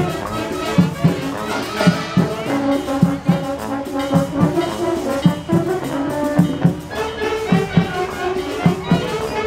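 Music with brass instruments playing held notes over a steady drum beat.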